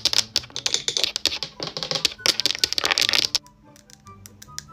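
Long acrylic nails clicking and tapping rapidly, loud and dense for about three seconds, then dropping to softer, sparser taps. Quiet background music runs underneath.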